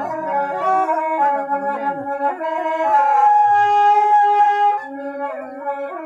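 Two long Toraja bamboo flutes (suling) playing a slow melody together, their notes stepping and bending, with a long held high note in the middle that is the loudest part.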